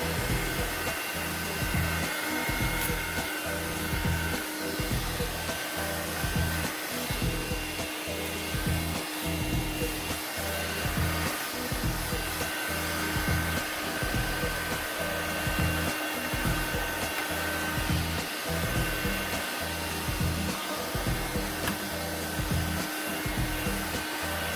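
Audew cordless handheld vacuum cleaner running steadily: a constant motor hum over rushing air.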